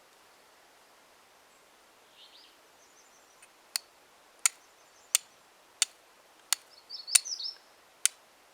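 Flint-and-steel fire lighting: the steel edge of a credit-card-sized wallet multitool struck against flint in seven sharp strikes, about one every two-thirds of a second through the second half. Faint bird chirps come in between.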